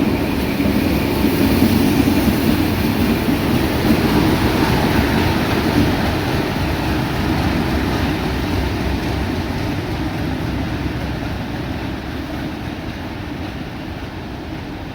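A train running past, loudest in the first few seconds, then fading steadily as it moves away.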